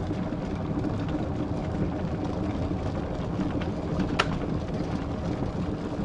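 Russell Hobbs 26080 glass electric kettle boiling a full 1.7 litres of water, a steady bubbling rush. One sharp click about four seconds in, which fits its switch turning off at the boil.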